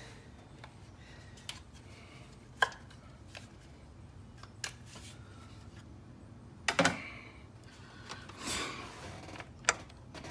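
A few scattered sharp clicks and knocks of hand tools and metal parts being handled under the hood, with a short scrape near the end. A low steady hum runs underneath.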